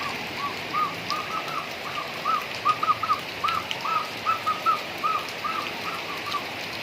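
A bird calling a long run of short whistled notes, each rising and falling, about three a second, over the steady rush of flood water.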